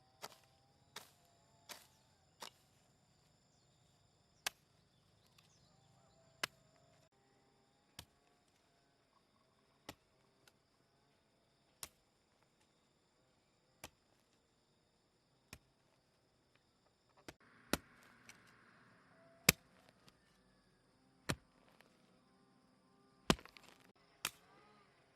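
Sharp, single strikes of a hand tool, one roughly every two seconds, with a few louder blows in the second half.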